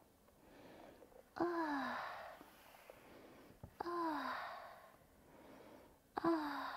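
A woman's voice letting out three long, falling "ohh" sighs, about two and a half seconds apart, each starting suddenly and dying away, with softer breaths drawn in between.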